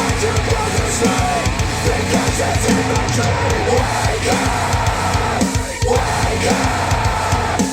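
Hard-driving rock music with drums, played back through Wharfedale Denton 80th bookshelf speakers driven by a Sony STR-DG500 receiver.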